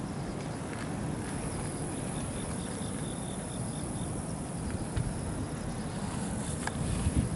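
Outdoor ambience: a steady low rumble, with a run of insect chirps about two to four seconds in and a few faint clicks toward the end.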